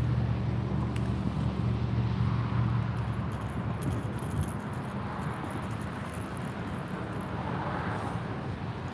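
Low, steady engine hum of a nearby motor vehicle, loudest for the first three seconds and then fading, over a background of road traffic.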